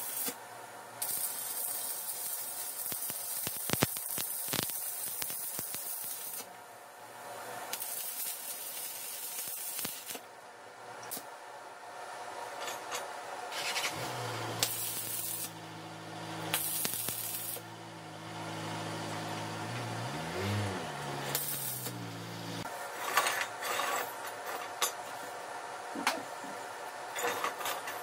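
Stick (arc) welding steel rods to a steel frame: crackling, hissing arc in several bursts, the longest in the first six seconds and shorter ones in the middle. Near the end, sharp clicks and knocks as the welded metal is handled.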